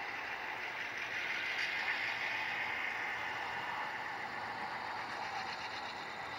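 Sound-equipped HO-scale model F-unit diesels playing their diesel engine sound, together with a heater car's steam generator sound, as the passenger train goes by. Steady and thin-toned.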